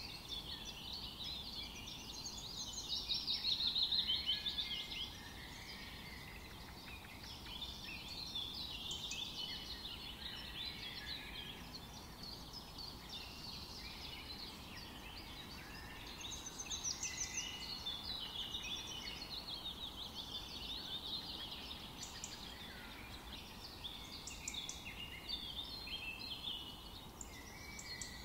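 Several songbirds singing and chirping over a faint, steady background hiss, with the loudest song from about 3 to 5 seconds in.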